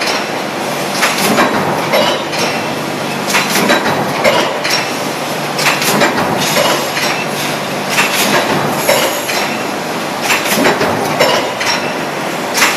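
Coil-fed stamping press line running: a steady machine noise with irregular metal clanks, roughly one or two a second.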